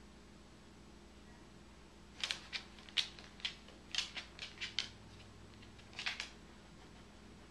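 Corgi's claws clicking on a hardwood floor as it walks, a string of irregular sharp ticks starting about two seconds in and stopping about six seconds in.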